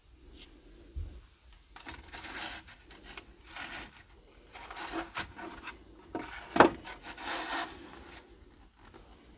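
Cardboard boxes being handled and slid across a wooden cabinet shelf, in several scraping rubs. One sharp knock comes about two-thirds of the way through and is the loudest sound.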